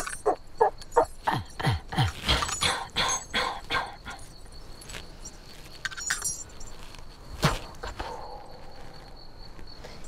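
A woman's voice imitating animal calls: short, rapid cries about four to five a second, some sliding down in pitch, which fade out about four seconds in. A single sharp click follows a little past the middle.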